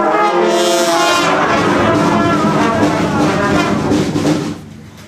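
A loud held chord of many pitched tones sounding together, brass-like, lasting about four and a half seconds and then breaking off.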